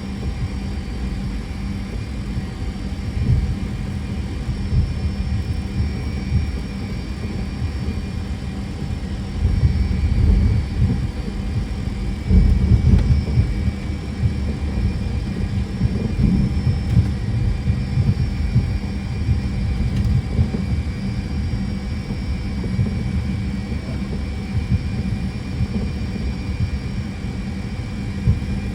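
Fokker 100 cockpit noise while taxiing: a steady hum of the Rolls-Royce Tay turbofans at idle and cockpit equipment, under a low rumble. The rumble grows louder about ten seconds in and again from about twelve to fourteen seconds in.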